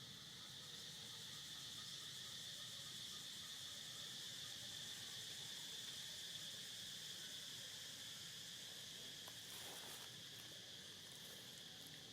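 Insects buzzing in a steady high-pitched chorus, with a brief crackle about ten seconds in.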